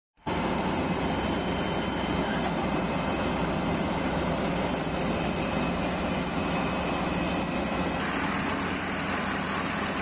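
Mini combine harvester running steadily in the field: its engine and cutting and threshing machinery make a continuous mechanical noise, which shifts slightly about eight seconds in.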